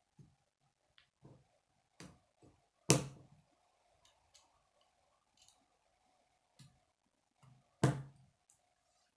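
Plastic K'nex rods and connectors clicking and snapping together by hand at irregular intervals, with two loud snaps, about three seconds in and near the end.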